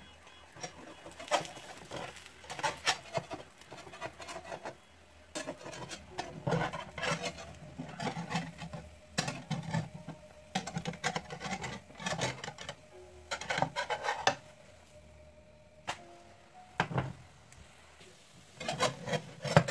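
Metal kitchen utensils knocking and scraping against a frying pan and plate, in irregular clusters with short pauses and the loudest clatter near the end.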